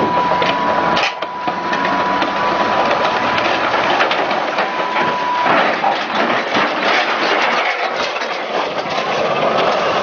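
Tank's engine and steel tracks clattering as it climbs onto a low-loader trailer, with a steady high whine for the first half and scattered sharp metal knocks.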